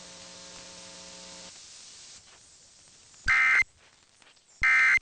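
Emergency Alert System end-of-message (EOM) data bursts: two short, loud digital buzzes about a second and a third apart, the signal that closes the alert. Before them a steady low hum cuts off about one and a half seconds in.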